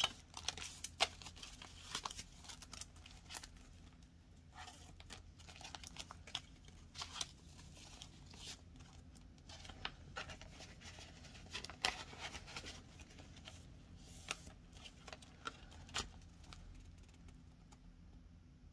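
Paper banknotes being handled and slid into the clear plastic pockets of a ring-bound cash budget binder: faint, scattered rustling and crinkling of paper and vinyl, with short clicks as the binder pages are handled.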